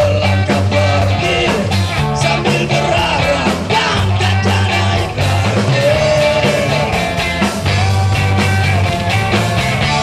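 Live band playing electric guitars, drum kit and keyboard, with a steady beat.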